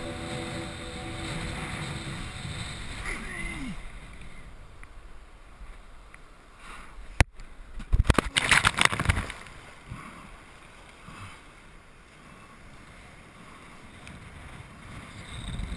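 Wind and water rushing past a kiteboarder's action camera as he rides through choppy surf. About seven seconds in there is a sharp knock, followed by a second or so of loud spray and buffeting.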